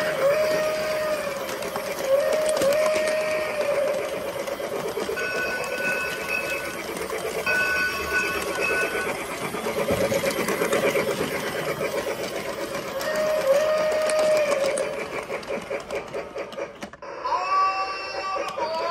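Toy steam locomotive running around its track: a steady rhythmic clatter of motor and wheels, with held whistle-like tones from its sound effects several times, the longest two about five and seven seconds in. Near the end the sound changes abruptly as music comes in.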